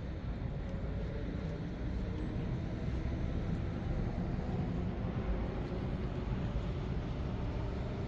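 Steady low rumble of outdoor background noise, without breaks or distinct events.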